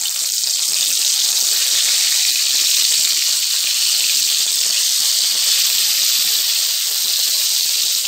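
Hot oil sizzling steadily in a steel kadai as whole stuffed baby brinjals are laid into it, with a light crackle throughout.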